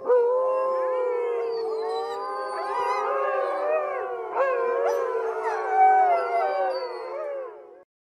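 Several wolves howling together in a chorus: many overlapping howls at different pitches, some held steady and others gliding up and down. It starts abruptly and fades out just before the end.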